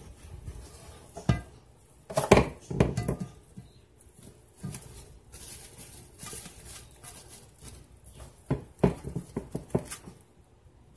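Plastic cling wrap crinkling and rustling as it is pulled from the roll and stretched over a round aluminium pan, with sharp clicks and rustles, the loudest about two seconds in and a cluster of them near the end.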